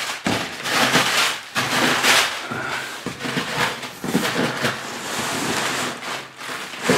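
Packing tape being ripped off a cardboard box, with the cardboard scraping and rustling, in a run of uneven scratchy tearing bursts.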